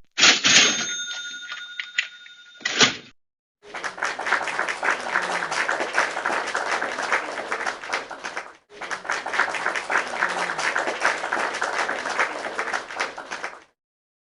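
A bell-like ding with a few clear ringing tones that fade over about two seconds and a second sharp hit, followed by about ten seconds of dense clapping-like crackle that breaks off briefly in the middle.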